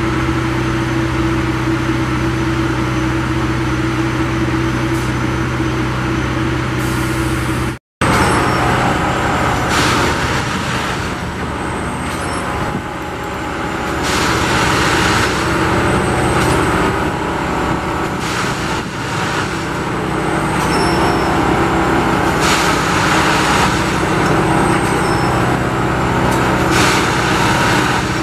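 Plasser & Theurer Duomatic 09-32 CSM track tamping machine at work. Its engine runs steadily at first. After a sudden break about eight seconds in, the tamping units cycle into the ballast, with a surge of noise every two seconds or so.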